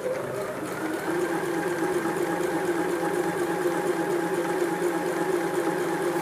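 Singer SH-660 household electric sewing machine stitching a test seam through fabric, its upper thread tension set back down to 4. The motor picks up speed over the first second, its whine rising in pitch, then runs at a steady speed.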